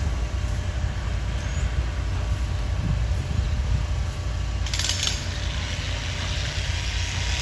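Vehicle engine running with a steady low rumble, and a short hiss about five seconds in.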